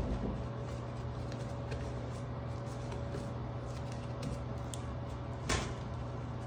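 Gloved fingers digging in an open shower drain: small scattered clicks and scrapes, a knock at the very start and one sharper click about five and a half seconds in, over a steady low hum.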